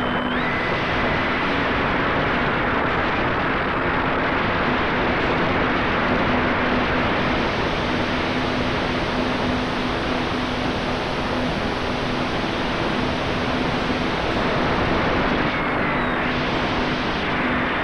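Steady rush of wind over the onboard camera microphone of an E-flite Commander mPd electric RC plane in flight, with a faint steady hum of its electric motor and propeller underneath.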